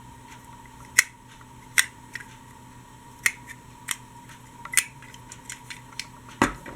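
Scattered sharp clicks and taps of small die-cast metal toy trains being handled, with a louder knock near the end, over a faint steady hum.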